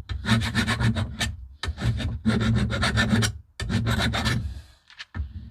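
Flat carbon-steel hand file rasping along the cutting edge of a Bosch Rotak 34 lawnmower's steel blade, taking off a bent-over burr: three long strokes, then a couple of short scrapes near the end.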